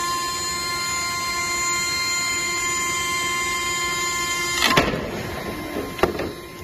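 CNC router's 9 kW spindle running with a steady high whine of several tones while the bit cuts through a wood sheet. About two-thirds of the way in, the whine stops abruptly with a short loud burst of noise, and a sharp knock follows about a second later.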